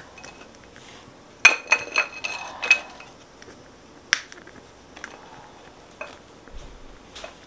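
Thin metal marshmallow fork clinking against a ceramic plate as a toasted marshmallow is slid off it: a quick cluster of ringing clinks about a second and a half in, then a single clink at about four seconds and a few faint ticks.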